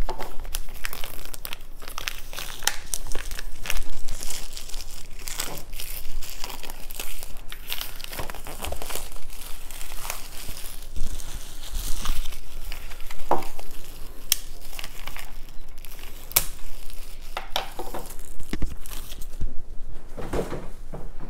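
Plastic packaging crinkling and tearing as it is opened by hand, with many sharp clicks and knocks throughout.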